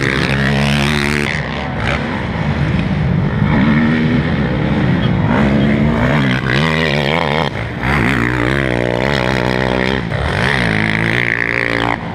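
Racing quad ATV engines revving hard as the quads ride the motocross track, the pitch climbing and dropping again and again with the throttle and gear changes.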